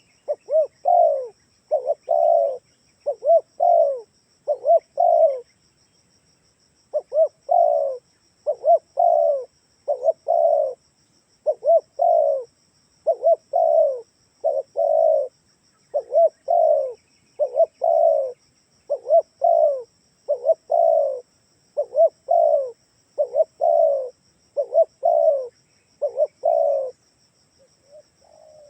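Spotted dove (tekukur) cooing: short, fast coo notes in clusters repeated steadily, with a pause of about a second and a half about five seconds in. It is a recorded dove call used as a lure to draw other doves.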